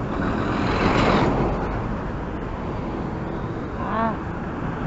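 Traffic noise, loudest in the first second as a lorry passes close by. About four seconds in, a cyclist gives a short cry of alarm as his cleats fail to unclip from the pedals.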